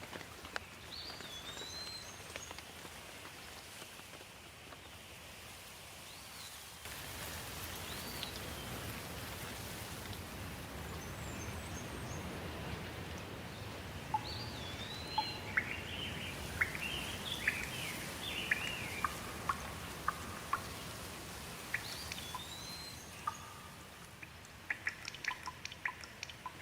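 Steady rain with birds calling over it: short whistled chirps that swoop up and down, repeating every few seconds. The rain gets louder suddenly about a quarter of the way in, and later comes a run of quick chirps and sharp drip-like ticks.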